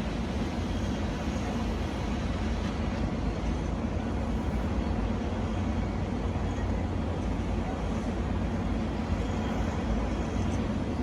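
Steady low engine rumble, unchanging throughout, as of heavy machinery or vehicles running.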